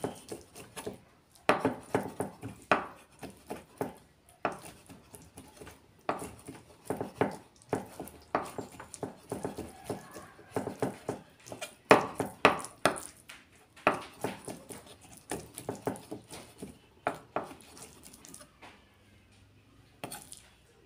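Kitchen knife chopping and mincing raw chicken on a thick round wooden chopping board: quick, uneven runs of knife knocks on the wood, with short pauses, stopping near the end.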